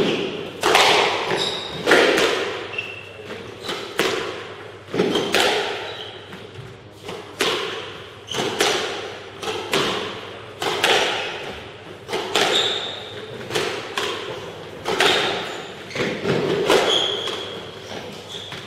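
Squash rally: the ball cracking off rackets and the court walls about once a second, each hit echoing in the hall. Short squeaks of court shoes on the wooden floor come between hits.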